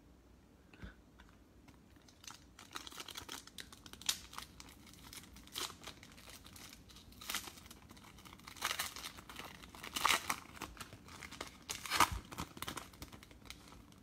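Foil wrapper of a Chronicles Draft Picks football card pack being torn open and crumpled by hand: an irregular run of crinkles and rips starting about two seconds in, loudest near the end.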